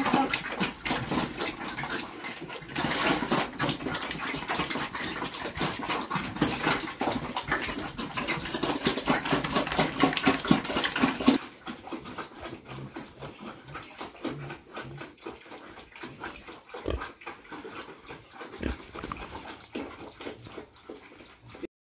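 Pigs eating wet cooked bran mash: rapid wet chomping and slurping, dense for about half the time, then quieter and sparser.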